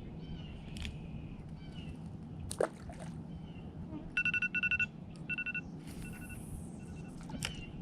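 Bursts of rapid, high-pitched electronic beeping, fast at first, then in shorter groups, over a steady low background noise, with a single sharp click a few seconds in.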